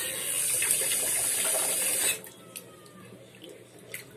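Kitchen tap running into a pot of washed rice in a stainless-steel sink for about two seconds, then shut off suddenly: cooking water being topped up over the rice. A few faint taps and drips follow.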